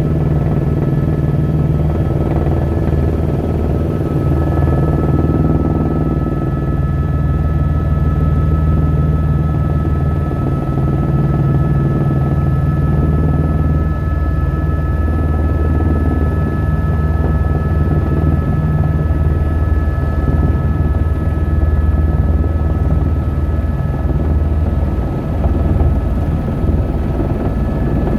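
Helicopter engine and rotor running steadily, heard from inside the cabin: a loud low drone with a steady high whine above it.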